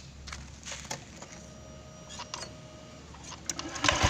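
Scattered light clicks and knocks of hands on the scooter, with a faint steady hum for about a second and a half in the middle. Near the end the Honda Vario 125's fuel-injected engine is started and catches, just after a loose bolt in its CVT case was refitted.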